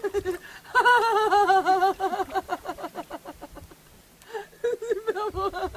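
A woman's high-pitched laughter, quick repeated syllables in two runs with a lull around the middle.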